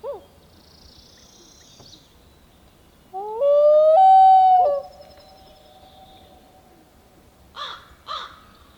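Common loon wailing: one long call that rises, steps up to a held note for about a second and a half, then drops away. Two short, harsher calls follow near the end.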